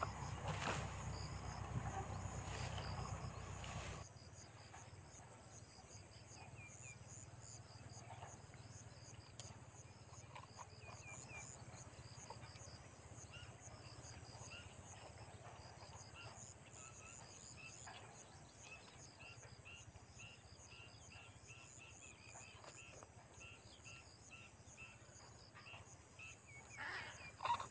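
Insects chirring in a steady high-pitched drone, with faint short chirps scattered through it. A low rumble under it in the first four seconds stops abruptly.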